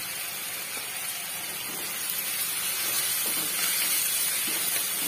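Chopped tomatoes, onion and green chillies sizzling as they fry in a kadai, cooking down until soft, with a wooden spatula stirring and scraping through them. The sizzle is steady and grows a little louder about two seconds in.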